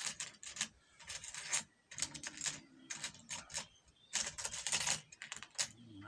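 A rake lock pick scraping in and out of a 38 mm padlock's keyway, rattling over the pins: short runs of quick metallic scraping and clicking with brief pauses, the longest and densest run a little past four seconds in.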